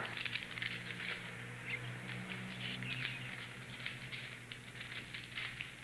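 Paper letter being handled: faint, irregular crackling rustles over a low steady hum.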